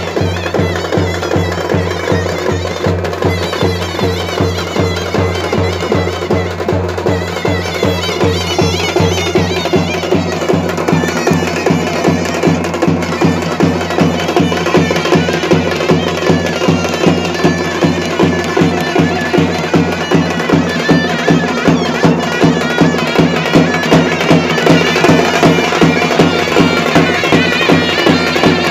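Traditional folk band music: a wind instrument plays a melody over a drone, with a large metal-shelled drum beating a steady fast rhythm of about two to three strokes a second. It grows louder about eight seconds in.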